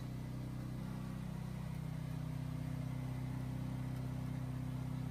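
Seamless gutter machine running with a steady low hum as it roll-forms flat aluminium sheet into a continuous length of rain gutter.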